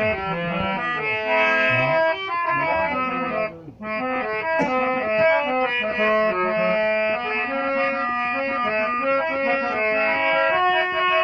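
Harmonium playing a qawwali melody in held reed notes, with a brief break about three and a half seconds in.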